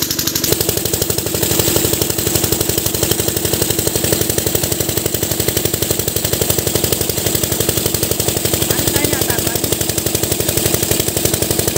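Single-cylinder diesel pump-set engine running steadily with an even, rapid firing beat while it drives an irrigation water pump, a thick jet of water gushing and splashing from the outlet pipe.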